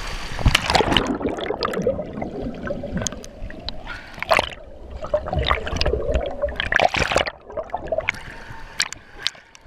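Water splashing and sloshing in irregular splashes, with gurgling water underneath, thinning out near the end.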